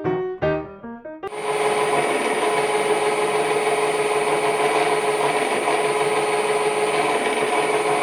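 Piano music for about the first second, then a sudden cut to a lathe drilling a hole in a metal part: a steady cutting noise with a constant tone and a high whine.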